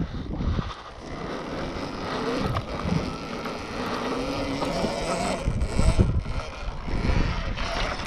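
Wind buffeting the microphone while the Apollo RFN electric dirt bike is ridden. A faint whine rises and falls in pitch through the middle.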